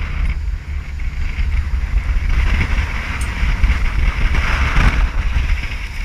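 Coast Guard rescue boat running through heavy surf: wind buffeting the microphone over a steady low rumble, with breaking water and spray rushing past the hull, surging louder about five seconds in.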